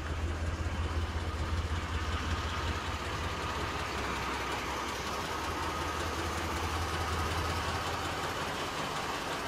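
1993 GMC Jimmy's 4.3-litre V6 idling steadily with a low, even hum.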